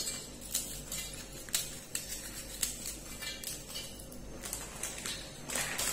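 Marie Gold biscuits snapped by hand into small pieces, the bits dropping into a steel bowl: irregular crisp snaps and light clinks.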